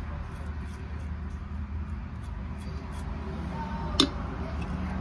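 A steady low hum, with one sharp click about four seconds in.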